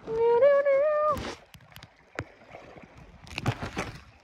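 A person singing a short wordless 'do do do' tune for about a second, then canoe paddle strokes, with a few water splashes near the end.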